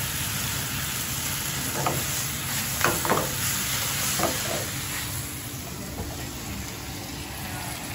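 Water spinach stir-frying in an oiled frying pan over a gas burner: a steady sizzle as chopsticks toss the greens.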